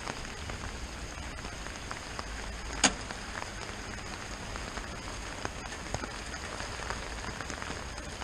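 Rain pattering on a surface, with many small drop ticks over a steady hiss, and one sharp click about three seconds in.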